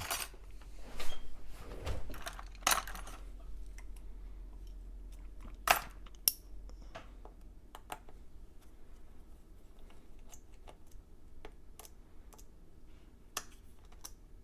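Scattered light clicks and taps of a small screwdriver and tiny screws being handled on an open MacBook Air while the speaker screws are taken out, a few sharper clicks standing out.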